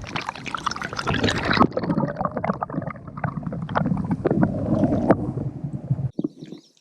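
Water splashing and gurgling close to the microphone, with many small clicks and knocks. It is loudest in the first second and a half and cuts off abruptly near the end. It fits a small river bass being let go back into the water.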